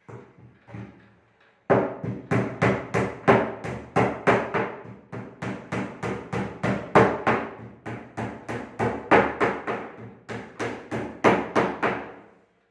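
Hammer striking wood in a fast, steady run of blows, about four a second, starting about two seconds in and stopping shortly before the end, with a few lighter taps before.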